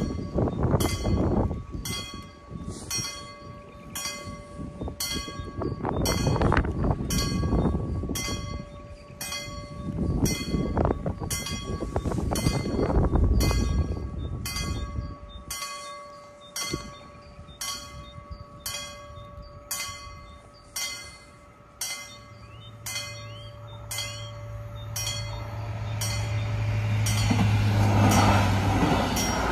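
Level-crossing warning bells ringing in an even, steady rhythm, with gusts of wind rumbling on the microphone in the first half. Later a diesel multiple unit approaches with a low, steady engine drone that grows louder and passes over the crossing near the end.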